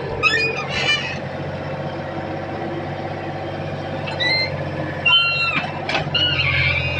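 Excavator's diesel engine running steadily, with several short high metallic squeaks near the start and again around the fourth to sixth second.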